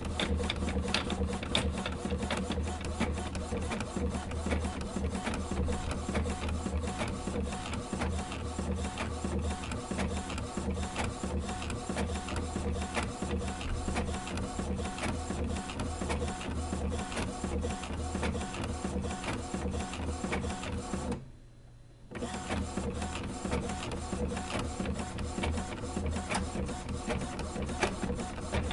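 A small machine running steadily, a mechanical whir with a dense stream of rapid clicks over a low hum. It cuts out for about a second roughly three-quarters of the way through, then carries on.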